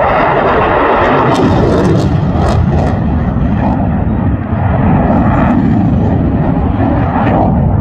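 Loud, steady jet noise from a Eurofighter Typhoon's twin EJ200 turbofan engines as the jet manoeuvres overhead.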